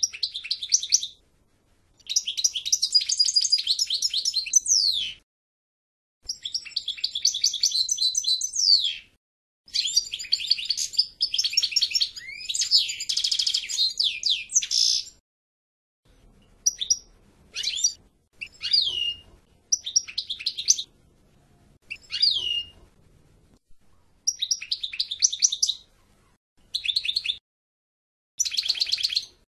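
European goldfinch singing: rapid, twittering song phrases several seconds long, with short pauses between them. In the second half the phrases are shorter and include quick down-slurred notes.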